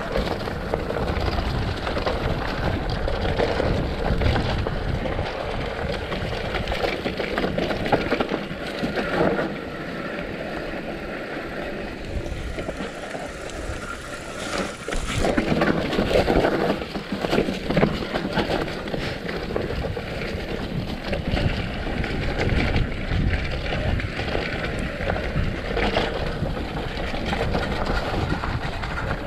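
Mountain bike running down a rough trail: a continuous rumble and rattle of tyres and frame, with wind buffeting the microphone. It eases off for a few seconds in the middle, then grows rougher and louder.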